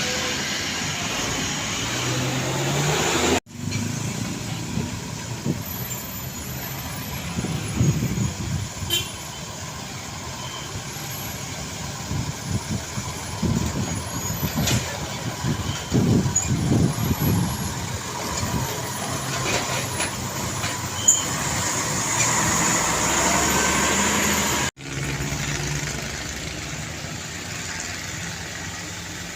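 Heavy diesel trucks passing on a road: engine rumble and tyre noise swelling and fading as each vehicle goes by. The sound cuts out abruptly twice, a few seconds in and a few seconds before the end, where clips are joined.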